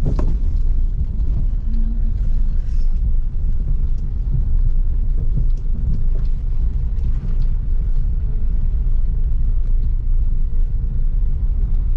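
Car driving along a road, a steady low rumble of engine and road noise heard from inside the cabin.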